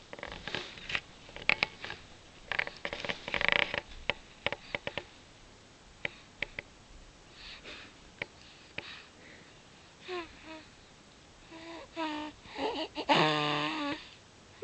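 Breathy sniffing and snorting noises, then short squeaky vocal sounds that rise and fall, the loudest a longer wavering one near the end.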